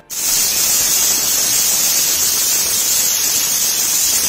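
Pressure cooker whistle venting steam: a loud, steady hiss, mostly high-pitched, that starts suddenly. The weighted valve on the lid lifts as the cooker reaches pressure, one of the whistles counted to time the cooking.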